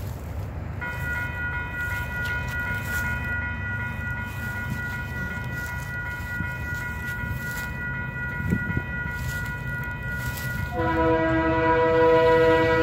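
Railroad crossing warning bell ringing steadily from about a second in. Near the end a locomotive air horn sounds loudly, a chord of several notes, as the train approaches the crossing.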